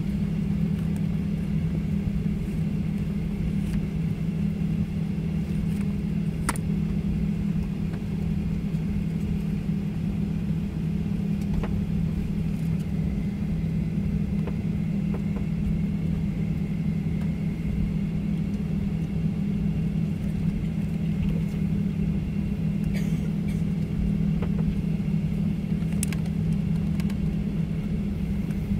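Steady low drone inside a Boeing 737-900's cabin while it taxis, its CFM56-7B engines at idle together with the hum of the cabin air, with a few faint clicks.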